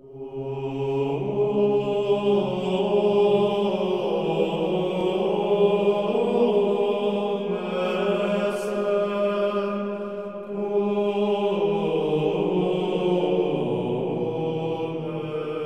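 Slow vocal chant, sung in long held notes that change pitch every few seconds.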